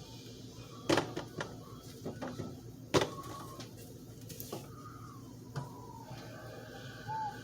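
Silicone pop-it fidget toy being pressed: a few irregular sharp pops, the two loudest about one and three seconds in.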